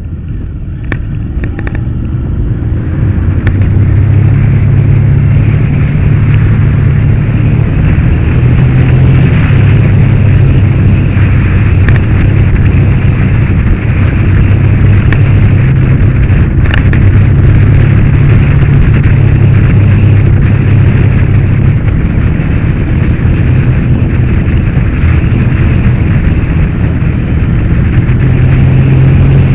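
Motorcycle engine running on the road under wind noise on the bike-mounted microphone, growing louder over the first few seconds and then holding a steady drone.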